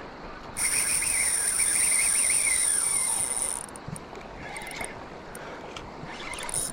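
Spinning reel's drag buzzing as a hooked salmon strips line, a high, wavering whir that starts about half a second in and runs for about three seconds, then a few shorter, fainter bursts as the fish keeps pulling.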